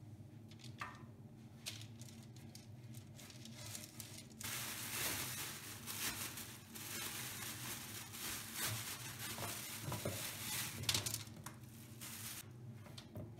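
Kitchen food-preparation noise: scattered soft clicks, then a dense crackling hiss with many small clicks from about four seconds in until near the end.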